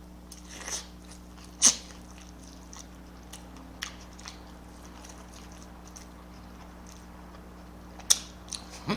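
A person chewing food close to the microphone, with scattered short wet mouth smacks, the loudest about two seconds in and a few more near the end, over a steady low electrical hum.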